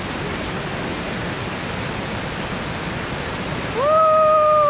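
Steady rushing of a river waterfall cascade. Near the end a person gives one long, loud shout, held on one pitch and then dropping away.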